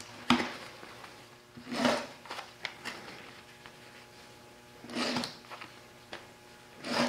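Utility knife cutting through the denim and stitching of a jeans back pocket: a sharp click just after the start, then three short cutting strokes, the last near the end.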